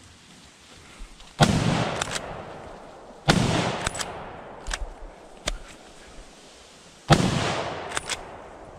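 Three rifle shots from a scoped hunting rifle: the first about a second and a half in, the second about two seconds later, the third about four seconds after that. Each shot rolls on in a long echo through the woods, and fainter sharp cracks come between the shots.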